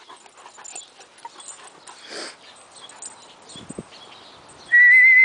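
Faint sounds of dogs at play, with a short noisy burst about two seconds in. Near the end, a loud, steady whistle from a person calling a dog starts up, wavering slightly and rising a little at its end.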